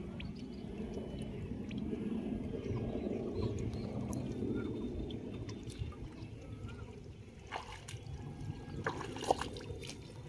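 Water sloshing and trickling as a cast net is hauled through a shallow, muddy pond. A few sharp knocks come near the end.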